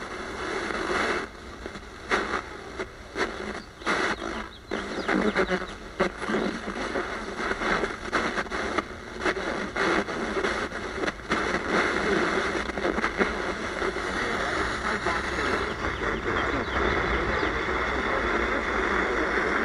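Static and hiss from a 5 Core T291 AM/FM/shortwave radio's speaker as the tuning knob is turned across the shortwave band, crackling and popping often in the first half, then a steadier hiss. Reception on shortwave is poor.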